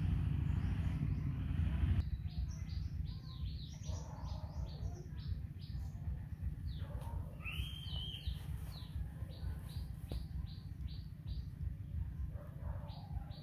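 Small birds chirping, with many short high chirps coming several a second and one louder arching call about seven to eight seconds in. Under the first two seconds lies a steady low noise that cuts off abruptly.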